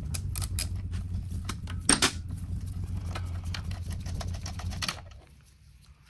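Ratchet wrench with a 15 mm socket loosening a motor mount bolt: a run of ratchet clicks and metallic clinks, with one louder knock about two seconds in. A steady low hum lies under it and stops about five seconds in.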